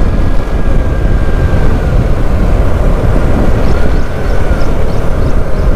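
Wind rushing over the microphone on a moving motorcycle, with the engine and road noise underneath: a loud, steady rumble.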